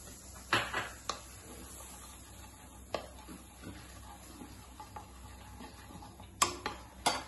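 Wooden spatula scraping and knocking against a nonstick kadai while spreading melted butter around the pan, with a few sharp knocks about half a second in and a cluster of them near the end.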